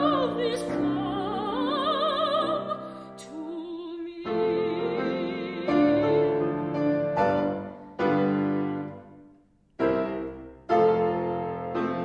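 Soprano voice singing with wide vibrato over grand piano, the voice ending about four seconds in. The piano then plays alone, a series of struck chords, each left to ring and fade, with a brief silence between two of them near the end.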